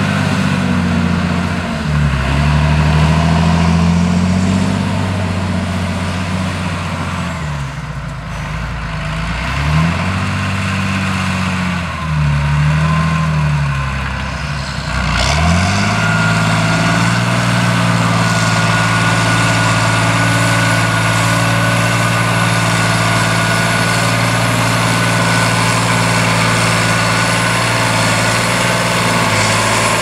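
John Deere 8210T tracked tractor's six-cylinder diesel engine working under heavy ploughing load in soft, waterlogged ground. Its engine speed dips and recovers several times in the first half. About halfway through it holds steady with a thin high whine above the engine note.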